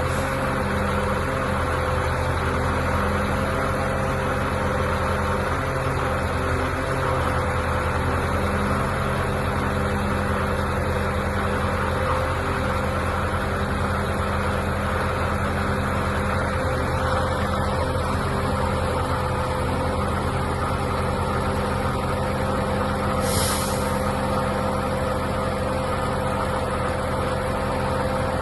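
Truck diesel engine of a Mercedes-Benz Actros concrete pump truck running steadily at constant speed. About two-thirds of the way through there is a short hiss of air.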